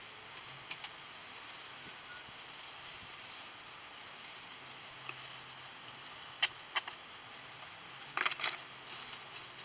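Gloved hands rubbing and squeezing hair dye through wet hair: a steady rustling hiss with a few sharp clicks, two about two-thirds of the way in and a louder cluster near the end.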